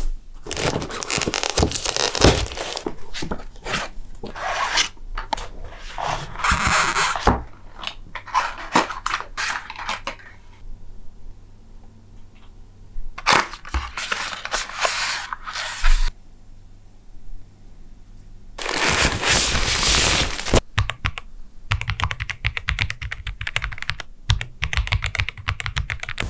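Cardboard packaging being handled: a box lid sliding off and paper inserts rustling and scraping, with a few sharp knocks. Over the last few seconds comes fast typing on the Epomaker Cidoo V87 Pro mechanical keyboard, a dense run of key clicks.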